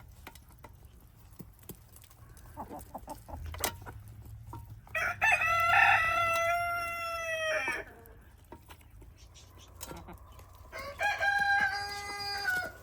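Rooster crowing twice: a long crow about five seconds in, and a shorter one near the end. In between come quieter clucks and short clicks from the flock of chickens.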